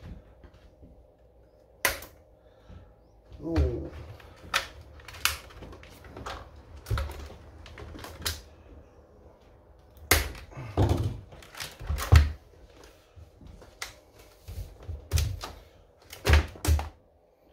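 Side cutters snipping plastic packaging ties off a Traxxas X-Maxx RC truck's chassis, with the ties pulled free as the truck is handled. Irregular sharp clicks and snaps come with dull knocks, the loudest about ten and twelve seconds in.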